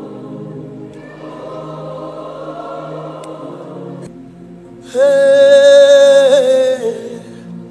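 Gospel background music: soft sustained chords, then about five seconds in a loud, held sung note over the chords that wavers and fades.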